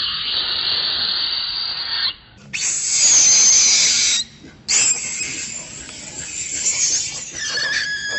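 Macaques screaming and squealing, loud and shrill, in long bursts broken by sudden short gaps about two and four and a half seconds in.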